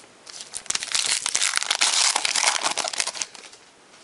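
The plastic wrapper of a pack of football trading cards crinkling and tearing as it is opened, a dense crackle lasting about three seconds.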